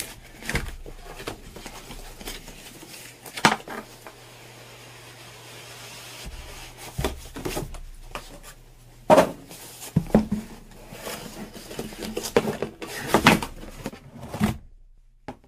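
Cardboard graphics-card box being handled and opened: cardboard sliding and rubbing, with a few sharp knocks against the desk, the loudest about nine seconds in.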